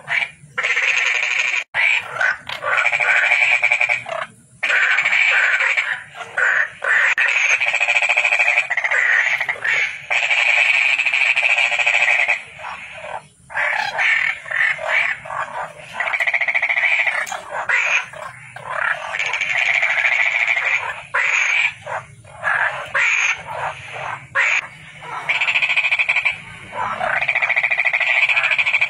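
Frogs calling loudly and continuously, in stretches of several seconds broken by sudden short gaps.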